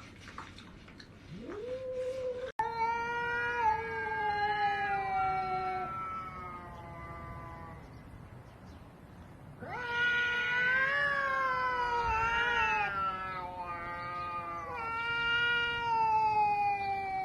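Domestic cats caterwauling in an aggressive standoff: long, drawn-out yowls that sag in pitch at their ends, coming in three or four long wails with a short break partway through. A sharp click sounds once early on.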